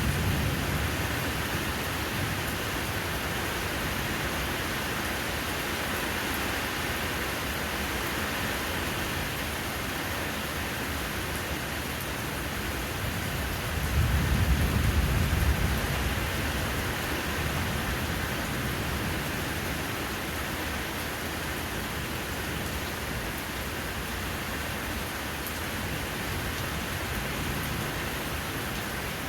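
Steady rain falling, an even hiss. About halfway through, a low rumble swells up for a couple of seconds over the rain, then fades.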